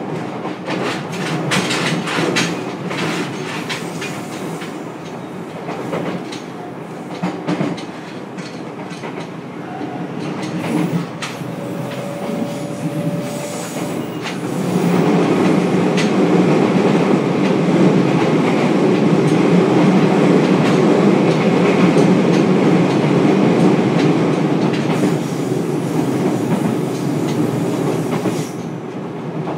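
JR Kyushu 303 series electric multiple unit running at speed, heard from inside its motor car MoHa 303-3: steady wheel-on-rail rolling noise with clicks over rail joints. The noise grows louder about halfway through and eases off near the end.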